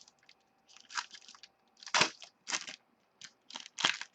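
Trading-card pack and cards being handled: a series of about six short crinkling, rustling noises, the loudest about two seconds in.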